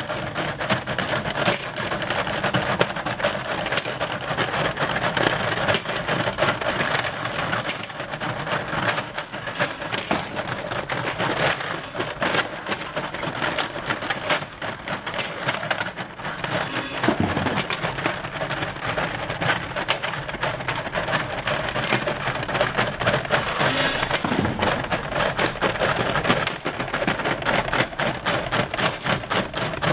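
Small stamped steel parts clicking and clattering against each other and on stainless steel as a magnetic slide conveyor drags them out of a hopper and up its textured bed. The sound is a dense, uneven run of small metallic clicks.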